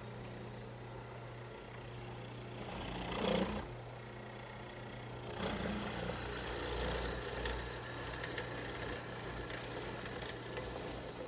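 Dedicated hollow-chisel mortiser running with a steady motor hum as its half-inch chisel and auger bore into a cypress chair leg. There is a louder bite about three seconds in, and the cutting gets louder from about halfway on.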